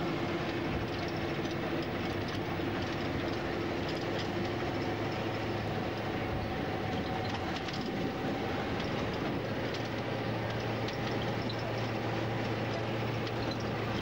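Bus engine running steadily under road noise, heard from inside the passenger cabin, with faint small rattles throughout.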